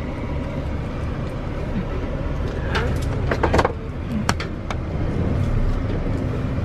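Steady low rumble of road traffic and vehicles, with a quick run of sharp clicks and knocks about three seconds in and a couple more shortly after.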